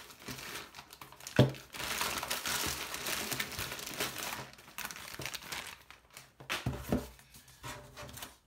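Plastic courier mailer bag crinkling and tearing as it is ripped open and a cardboard box is pulled out, with a sharp knock about a second and a half in and a few more knocks near seven seconds; quieter handling sounds at the end.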